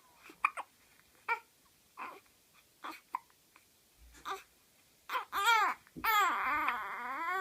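A baby hiccuping in short sharp bursts about once a second, then breaking into a longer fussy cry with a wavering pitch about five seconds in.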